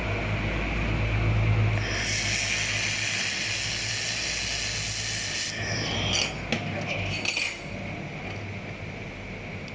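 2000 W handheld fiber laser welder firing a weld: a steady high hiss starts about two seconds in and cuts off about three and a half seconds later. A few light metallic clicks follow, over a low machine hum.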